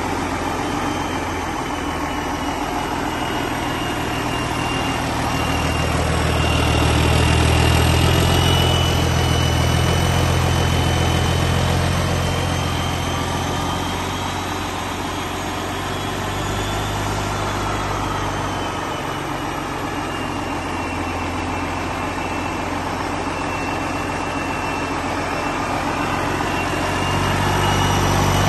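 Detroit Diesel Series 60 12.7-litre inline-six diesel engine idling steadily, with a faint thin high whine over it. It grows louder for several seconds about a quarter of the way in and again near the end.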